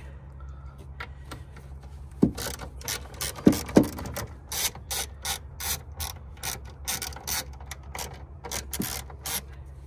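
Hand ratchet with a T30 Torx bit clicking in short strokes as it undoes a bolt, with a few louder knocks about two seconds in and near four seconds.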